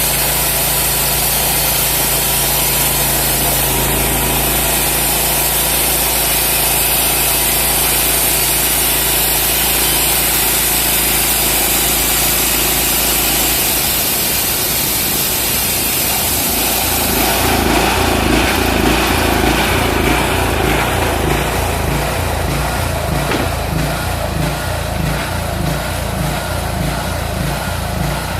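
Homemade portable bandsaw mill running, its engine driving the band blade through a log with a steady hiss. About two-thirds of the way through, the hiss stops and the engine carries on alone with a pulsing, uneven beat.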